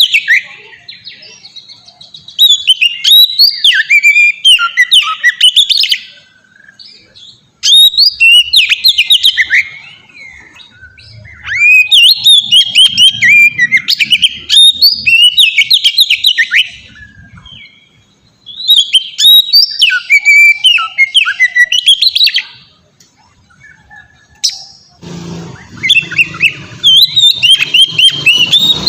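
Oriental magpie-robin singing: loud bouts of quick, swooping whistles and trills, each lasting a few seconds, with short pauses between them. A low rumble comes in under the song near the end.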